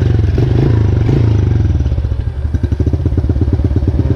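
A small single-cylinder pit bike engine runs with a fast, steady beat, its pitch rising a little in the second half as the bike pulls away.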